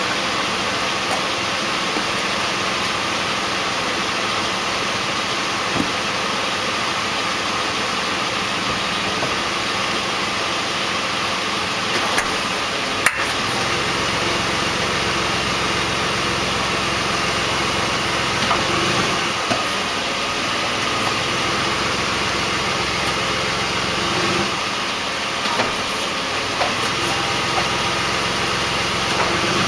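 2008 Ford Explorer's 4.0L V6 idling steadily, with a single sharp pop/clack about halfway through as it is shifted into reverse; the engine's low hum turns heavier just after. The owner hears the clack coming from the rear of the vehicle.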